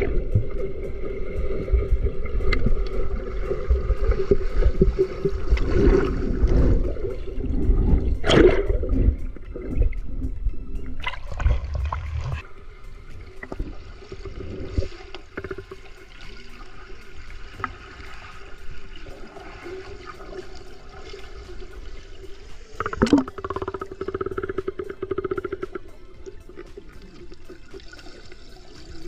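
Water sloshing and gurgling close to the microphone, heavy and rumbling for the first dozen seconds, then quieter. A few sharp splashes stand out.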